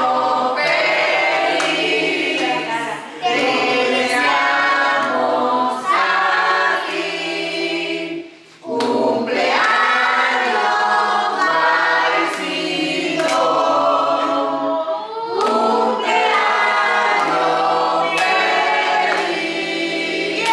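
A group of people singing a birthday song together, in sung phrases with a brief break about eight and a half seconds in.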